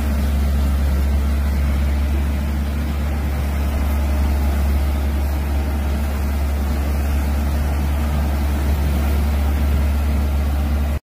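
Powerboss 9X ride-on dry sweeper running while it sweeps the road: a loud, steady low engine drone with an even hiss over it.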